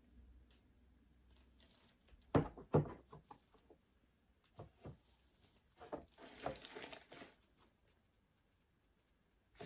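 A shoe handled over its cardboard box: a few sharp knocks about two to three seconds in and a couple of lighter ones near five seconds, then paper rustling around six to seven seconds.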